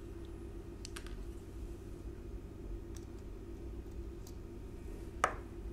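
A few faint light clicks of small steel parts being handled while a needle oiler is brought to a screw's threads on a mechanical calculator's frame, with one sharper click about five seconds in. A low steady hum runs underneath.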